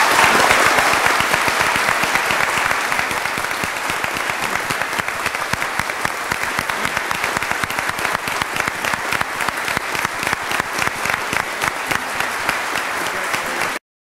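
Large audience applauding, swelling up at the start and holding steady, then cutting off abruptly near the end.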